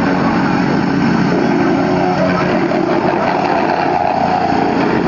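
Petrol-engined vibratory plate compactor running steadily while it compacts a fresh asphalt patch.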